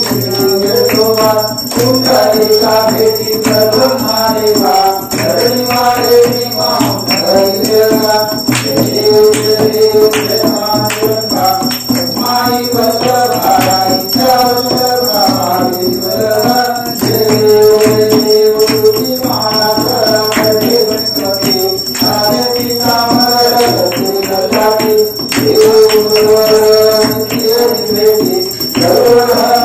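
Devotional aarti song sung by a man through a microphone, with jingling percussion keeping a steady beat.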